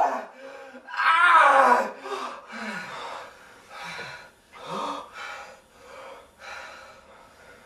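A man crying out once about a second in, then gasping and breathing hard in short, ragged breaths that fade.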